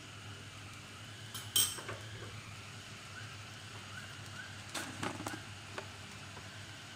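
Kitchen clatter at a gas stove: one sharp metallic click about a second and a half in, then a few lighter knocks around five seconds, over a steady low hum.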